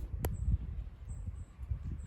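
Shiba Inu moving about: a sharp click like a claw on a hard floor about a quarter second in, over low, uneven thumping noises.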